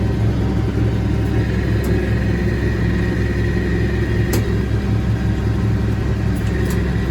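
Massey Ferguson 1105 diesel tractor engine running steadily, driving a John Deere 335 round baler during the twine-tying cycle, with a faint high whine and a few light clicks from the machinery.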